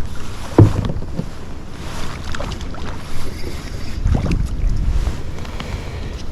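Wind buffeting the microphone on a small boat on open water, a steady low rumble with a few sudden knocks, the loudest about half a second in and another about four seconds in.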